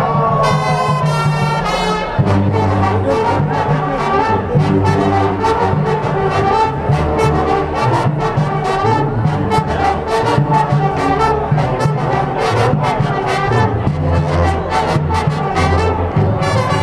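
Marching band brass and drums playing: a few short brass chord stabs, then from about two seconds in an upbeat tune over a tuba bass line and a steady drumbeat.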